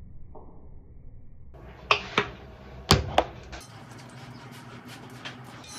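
Handling of a plastic cleanser bottle: about two seconds in, four sharp clicks and knocks come within about a second and a half. After them comes soft rubbing as the cleanser is worked over the face with the hands.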